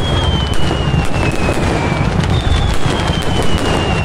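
Fireworks going off in a dense, continuous crackle over a low rumble. A long whistle falls slowly in pitch, one fading out about two seconds in and another starting just after.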